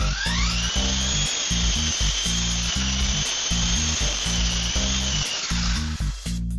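Small electric RC helicopter motor and rotor, an antique Honey Bee, spinning up. It makes a high whine that rises in pitch over the first second, holds steady, then fades out near the end, over background music.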